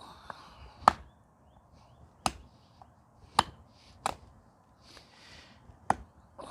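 A homemade steel machete-style knife chopping into seasoned hardwood, about five sharp chops at uneven intervals, the first the loudest.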